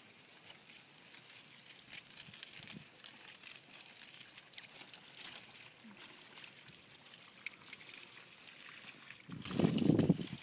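Garden hose spraying water, a faint steady hiss and patter. About nine seconds in it turns to a much louder rush of splashing as the stream hits the potted plants.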